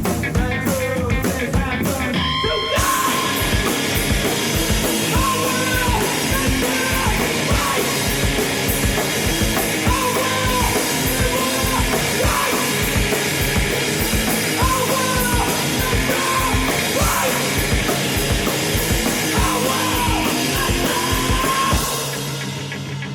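Live noise-rock band playing loud and dense: a distorted electric guitar over pounding drums and cymbals, with voice-like wails over the top. About 22 seconds in the drums and cymbals stop, leaving the guitar ringing on.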